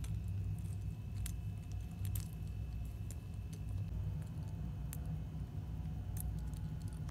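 Scattered light clicks and small jingles as a kitten bats at a hanging glass Christmas bauble on a string, a handful of times, over a low steady rumble.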